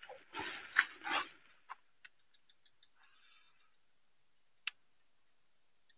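Fishing rod and reel being handled and recast: a few rustling swishes in the first second and a half, then two sharp clicks, about two and four and a half seconds in.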